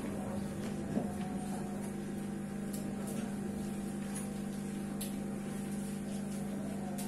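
Steady low electrical hum, a held tone with several overtones, with a few faint clicks scattered through it, one a little louder about a second in.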